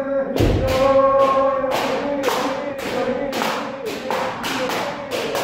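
Kendo practice: a rapid, irregular run of sharp bamboo shinai strikes and foot stamps, about three a second, under long, held kiai shouts from several kendoka.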